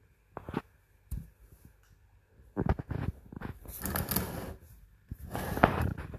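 Handling noise: a few short knocks, then two longer bursts of rustling and clatter, one in the middle and one near the end.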